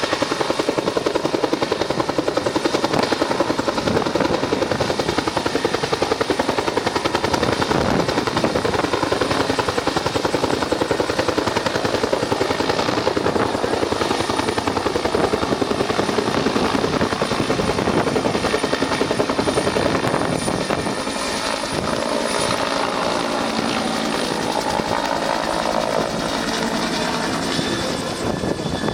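Search-and-rescue helicopter's rotor chopping steadily with a fast blade beat that smooths into a more even drone about twenty seconds in.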